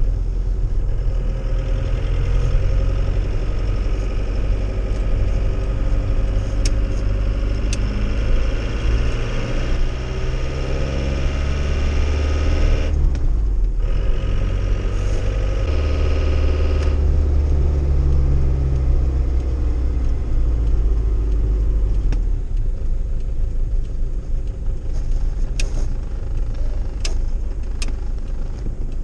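The 2.0-litre turbodiesel of a 1993 Iveco Turbo Daily, heard from inside the cab, pulling under an 800 kg load. The engine note climbs, drops out briefly at a gear change about halfway, climbs again, then settles into steady running. A few sharp clicks come near the end.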